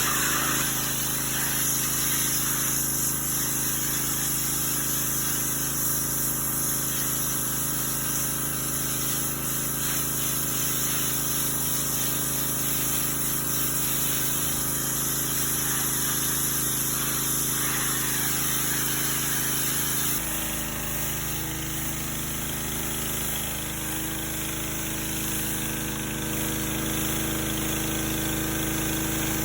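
Pressure washer running steadily, an engine-like drone under the hiss of the water jet. About twenty seconds in the drone changes pitch and goes on.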